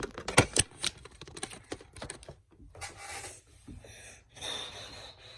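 Plastic LEGO pieces clicking and clattering as they are handled, a quick run of sharp clicks in the first two seconds, then softer rustling.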